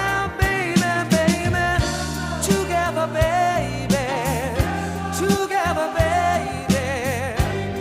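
Background music: a song with a singing voice over bass and a steady drum beat.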